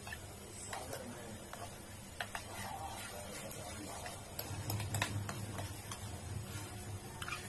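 Spoon stirring a thick mayonnaise sauce in a small steel bowl: irregular light clicks and scrapes of metal on metal, over a low steady hum.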